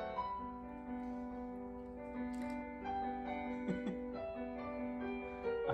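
Background piano music with slow, long-held notes.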